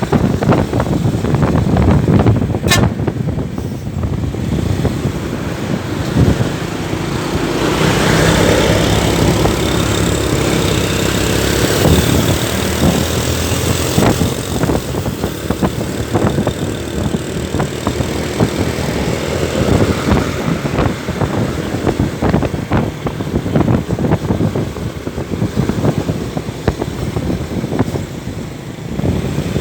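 Bus and road-traffic noise: a large vehicle engine running close by, louder for several seconds from about eight seconds in, with irregular knocks and rattles.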